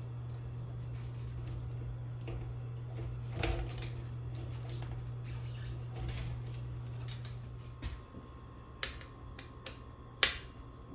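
A few sharp clicks and knocks over a steady low hum that stops about eight seconds in.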